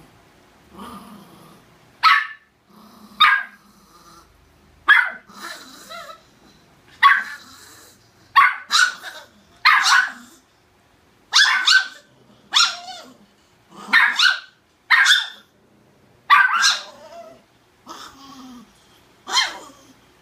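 A small dog barking sharply and repeatedly, about fifteen barks starting about two seconds in, some coming in quick pairs: an angry dog barking at another dog.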